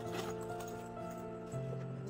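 Soft background music of long held notes that step from one pitch to the next.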